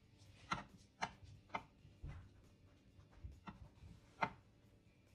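A string of sharp, irregular taps and clicks, about seven in all, the loudest about half a second in and just after four seconds.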